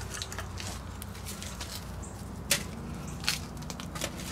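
Pieces of wood knocking as they are dropped and placed onto a burning fire in a steel grill barrel, with small ticks and crackles and a few sharper knocks in the second half.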